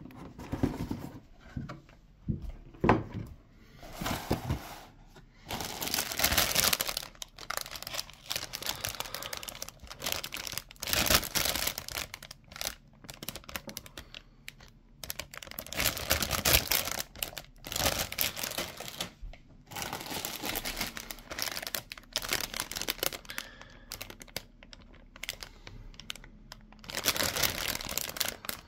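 Clear plastic bags crinkling and rustling in irregular spells as bagged plastic model-kit runners are lifted out and handled. A few knocks and taps near the start as the cardboard box is handled and opened.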